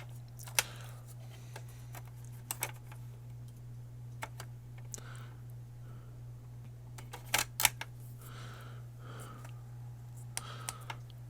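Sharp clicks and taps of plastic and metal console parts being handled and fitted into an Xbox One S case, a few at a time with pauses between, over a steady low hum.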